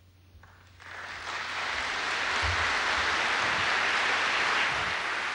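Large audience applauding, the clapping starting about a second in and swelling over the next second to a steady level.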